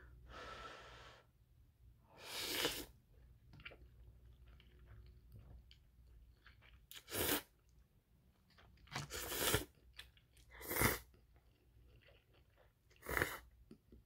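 A person slurping instant ramen noodles, with quiet chewing between: about five short, loud slurps a few seconds apart, the last as broth is sipped from the bowl.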